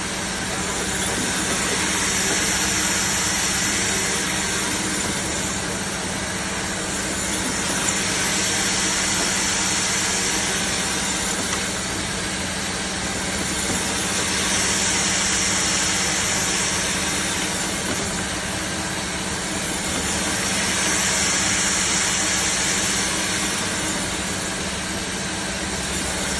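Automatic double meat band saw (HY-420A-2) running: a steady motor hum under a high hiss that swells and fades about every six seconds.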